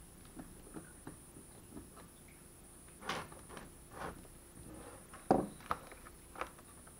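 Small clicks and knocks from laptop parts being handled and fitted during reassembly, the loudest knock about five seconds in.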